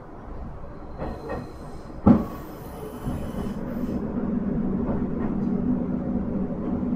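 MT-4000 diesel railcar at a station stop. About two seconds in there is a sharp clunk followed by a short hiss of compressed air. Then the engine runs with a steady low hum that grows louder.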